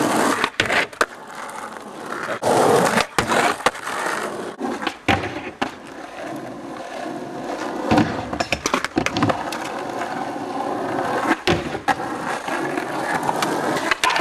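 Skateboard wheels rolling on asphalt, broken by sharp clacks and scrapes as the board pops, grinds and slides on a box ledge and a low flat rail and slaps back down on landing.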